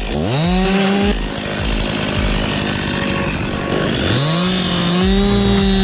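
Stihl MS 261 two-stroke chainsaw revving up sharply just after the start and running at high revs, then revving up again about four seconds in and holding at full throttle.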